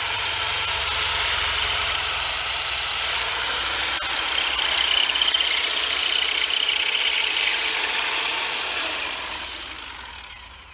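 Power drill boring a hole into a cinder block wall, running steadily and loudly, then fading away over the last couple of seconds.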